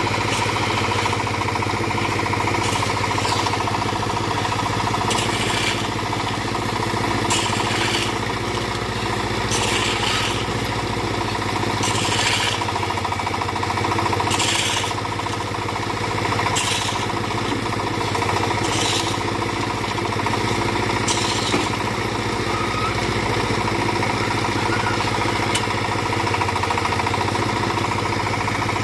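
Small backhoe's engine running steadily while it works, with short scraping or clattering bursts about every two seconds.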